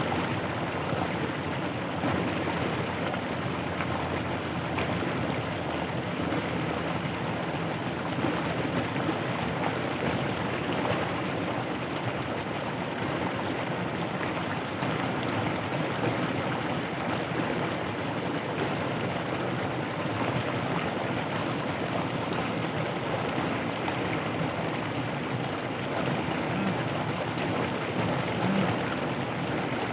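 Floodwater running fast across flooded rice fields: a steady, even rush of flowing water.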